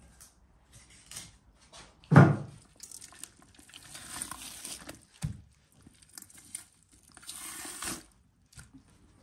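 Raw meat being handled by hand on a wooden board: a heavy thud about two seconds in, a smaller thud a few seconds later, and wet squelching and tearing as meat and fat are pulled apart.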